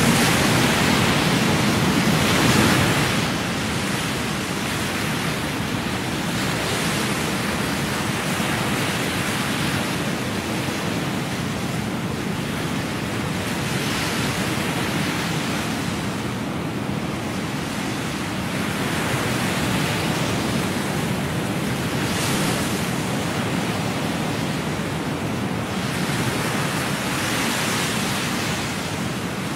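Ocean surf washing and breaking against shoreline rocks: a steady rushing noise that swells every few seconds as waves come in.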